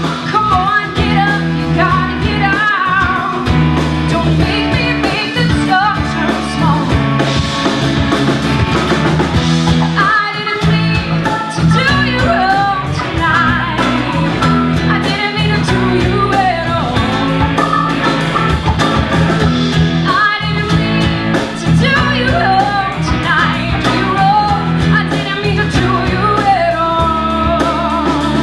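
A woman sings lead over a live rock band playing drums, bass, guitar and keyboards, with no break in the music.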